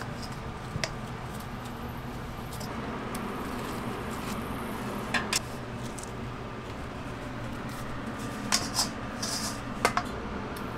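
Soft yeast dough being lifted and scraped out of a stainless steel bowl with a plastic dough scraper, with a few sharp clinks and knocks of scraper and metal bowls: a pair about five seconds in and several more near the end, over a steady kitchen hum.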